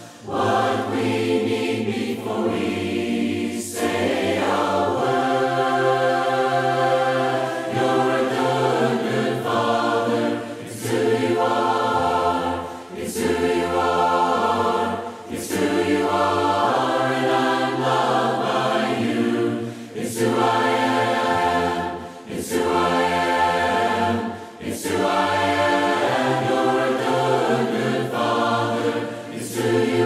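Choir singing a hymn a cappella in four-part harmony, the lines "'cause You know just what we need… it's who You are, and I'm loved by You", in phrases with short breaks for breath between them.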